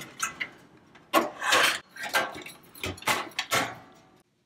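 A screwdriver scraping and prying against the sheet-metal back panel of a toaster oven, where a part is stuck down with gummy adhesive. Metal knocks and scrapes come in several irregular bursts, the loudest about a second in.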